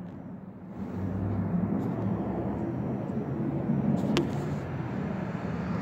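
A motor vehicle's engine running nearby: a steady low rumble that swells about a second in and holds, with a single click about four seconds in.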